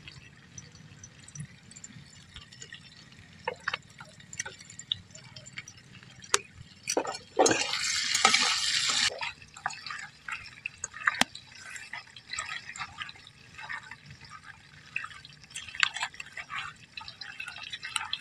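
Raw chicken being mixed by hand with mustard oil and spices in a steel bowl: wet squelching and scattered small clicks against the bowl, with a louder hissing stretch of about two seconds near the middle.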